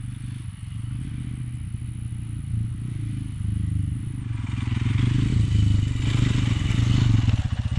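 Royal Enfield Himalayan's single-cylinder engine running as the bike is ridden slowly. A hiss builds from about halfway through as the engine note rises a little.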